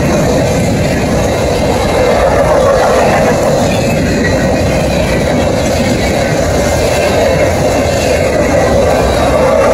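Freight cars rolling past: a steady rumble and rattle of steel wheels on the rails.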